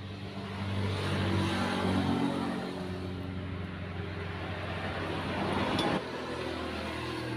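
A motor running steadily with a low hum, under a rushing noise that swells about a second in and then holds. The sound cuts off abruptly about six seconds in.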